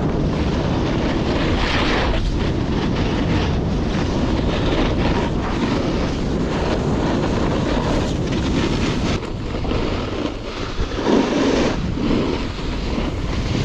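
Wind rushing and buffeting the microphone of a camera carried on a snowboard run, a steady rumbling noise that eases a little about two-thirds of the way through.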